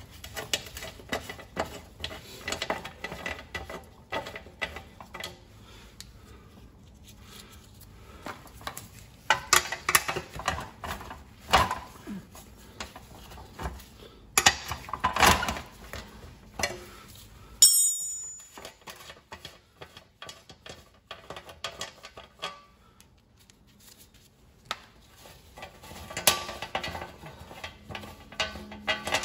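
Metal tools and pressure-washer parts clinking and clanking while being handled and worked on. About eighteen seconds in there is one sharp, ringing metal clang.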